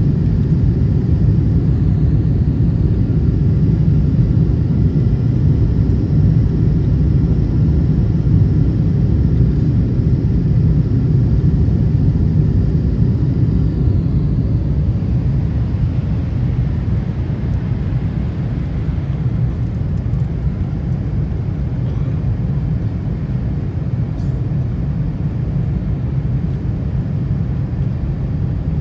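Boeing 747-8 cabin noise on final approach with the flaps extended: a steady low rumble of engines and airflow. Faint high tones fade out about halfway through, and the rumble eases slightly after that.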